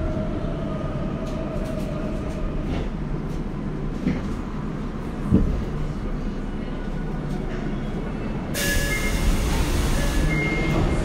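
Inside a Tokyo Metro 02 series subway car: a steady low rumble with a motor whine that falls away over the first few seconds, and two thumps in the middle. About three-quarters of the way through, a loud hiss of noise comes in suddenly.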